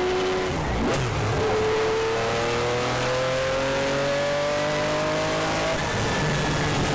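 McLaren F1 GTR's BMW V12 engine pulling hard at high speed, heard from inside the cockpit. Its pitch dips about a second in, climbs steadily for several seconds as the car accelerates, then drops near the end.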